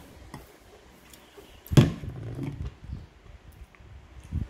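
Tableware being handled during a meal: one sharp knock a little under two seconds in, like a plate or utensil set against the table, followed by softer handling noise, with small clicks and eating sounds around it.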